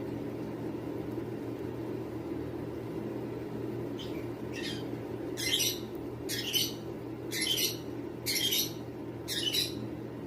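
A pet bird giving harsh squawking calls, about one a second, starting some four seconds in, over a steady low hum.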